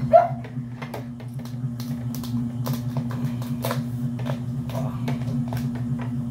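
A large cooked mud crab's shell cracking and snapping as it is twisted and pried apart by hand, with scattered sharp cracks throughout, over a steady low hum. A short high cry, the loudest sound, comes right at the start.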